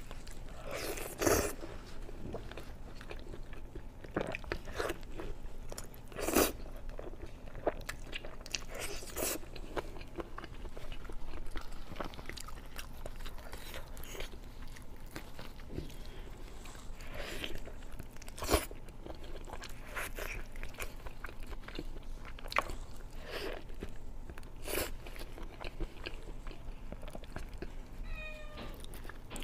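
A person biting and chewing kiln-roasted chicken close to the microphone: irregular small clicks and smacks of eating, with a few louder bites standing out, the loudest about a second in, six seconds in and eighteen seconds in.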